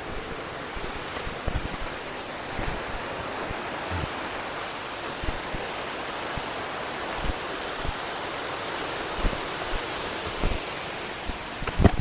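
Steady rushing of a waterfall, with a few faint soft thumps scattered through it.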